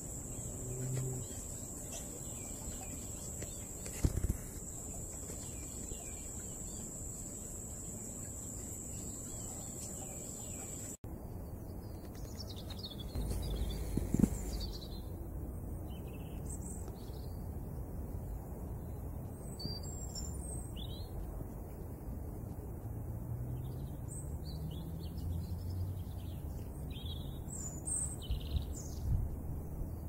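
A steady high-pitched insect drone that cuts off suddenly about a third of the way in, followed by a songbird's short, scattered chirps and song phrases over a low background rumble.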